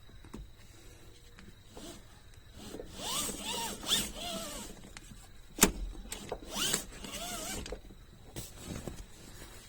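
Car seat belt webbing pulled out and reeled back by the retractor, twice, with a rasping whirr each time and a single sharp click in between.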